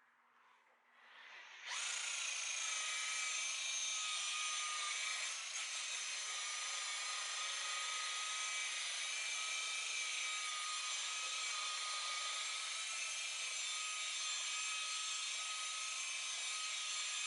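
Electric buffer/polisher switching on a little under two seconds in and running steadily with a constant whine, its pad buffing oxidation remover into a boat's oxidised fibreglass hull.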